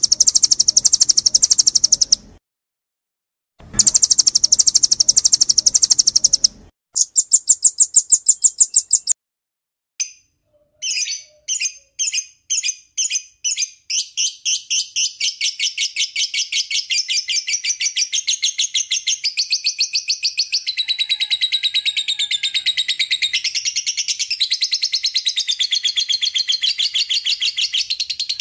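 Recorded songbird calls: two buzzy, high trills of about two and three seconds, a shorter high trill, then from about ten seconds in a run of sharp chips that speeds up into a continuous fast chattering trill that shifts in pitch.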